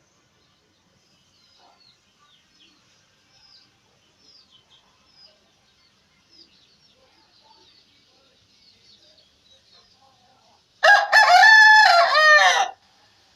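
A rooster crows once near the end, one loud call about two seconds long. Faint bird chirping comes before it.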